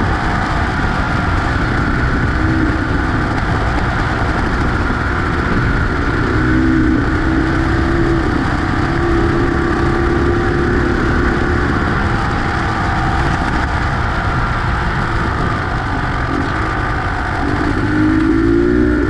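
Beta X-Trainer 250 two-stroke motorcycle engine running under way, its note rising and falling with the throttle, over a constant heavy rushing noise.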